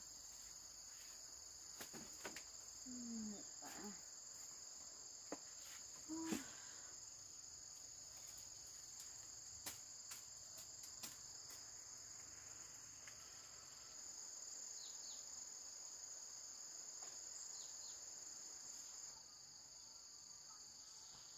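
Steady high-pitched chorus of night insects, such as crickets, that swells a little in the second half and eases off near the end. A few faint knocks and short low sounds come in the first few seconds.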